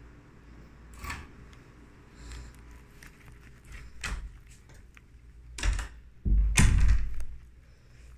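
A few scattered knocks and clunks of things being handled in a small room, then a heavier thump with a rumble about six seconds in, the loudest sound.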